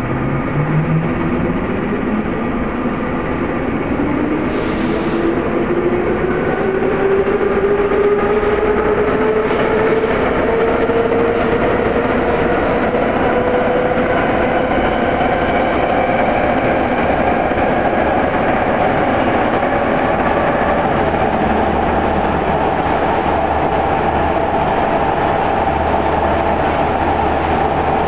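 Vagonmash 81-series metro train accelerating away from a station, heard from inside the passenger car. The traction-motor whine rises steadily in pitch over wheel and track running noise, and there is a short hiss about five seconds in.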